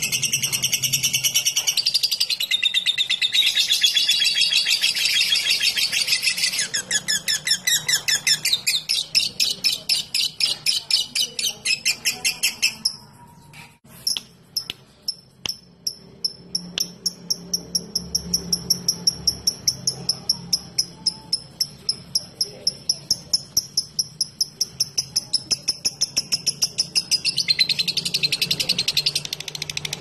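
Fischer's lovebird giving a long ngekek: a fast run of high, sharp repeated chattering notes, broken by a brief pause about halfway through. Denser, continuous high chatter opens the passage and returns near the end.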